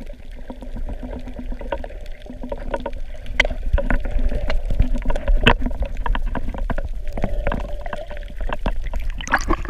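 Underwater sound picked up by a camera held below the surface while snorkeling: a constant low, muffled rumble of moving water with many scattered sharp clicks and a faint steady hum underneath.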